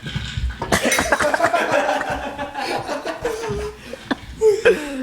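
Nonverbal vocal sounds from a person: a dense stretch of laughing and mouth noises for about two seconds, then short sliding vocal cries near the end.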